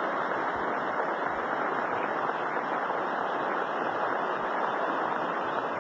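Large theatre audience applauding in a standing ovation, with dense, steady clapping.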